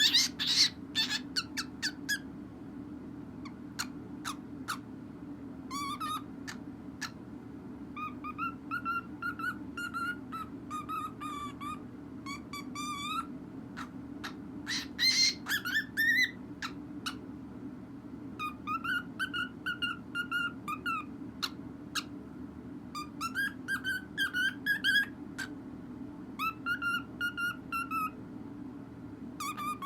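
Cockatiel whistling. Sharp chirps come first, then bouts of a short wavering whistled phrase repeated over and over, off-key enough that its owner calls the bird tone deaf. A steady low hum runs underneath.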